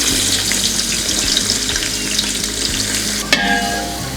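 Onions frying in hot oil in a pan, with a steady sizzle as they are stirred. A sharp metallic knock with a brief ring comes about three seconds in.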